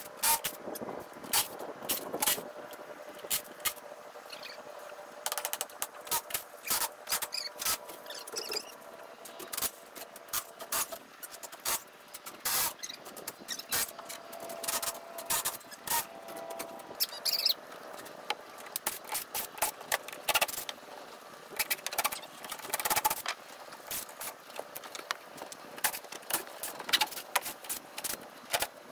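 Irregular sharp clicks and knocks of hand-tool work on a screen room's wooden frame, as 1x2 battens are pried off to remove the screens.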